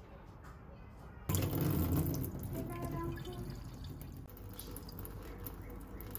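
Water running into a container, starting suddenly about a second in, with a pitch that rises as the vessel fills.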